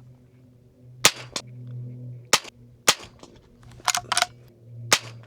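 Four unsuppressed shots of 40-grain Federal Auto Match .22 LR from a Rossi Rio Bravo lever-action rifle, sharp cracks spaced unevenly over about four seconds, with quieter metallic clicks between them.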